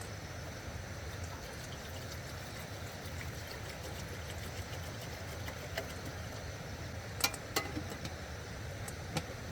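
Steady rushing of a loud nearby stream, with a few sharp clicks about seven seconds in and once more near the end.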